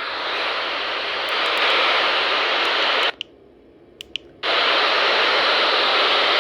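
Radio static: a steady hiss from a receiver tuned to a NOAA Weather Radio station that has gone off the air. The hiss cuts out for about a second near the middle, with a few faint clicks, then comes back.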